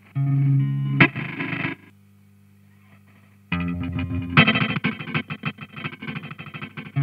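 Electric guitar played through an Old Blood Noise Endeavors Dweller phase repeater/delay pedal: a chord rings for under two seconds, then after a pause of about a second and a half with only a steady low hum, the guitar comes back chopped into fast, stuttering repeats.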